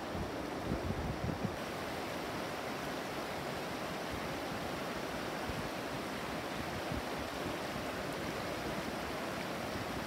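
Clear, shallow stream running over stones and a rock ledge: a steady rush of water.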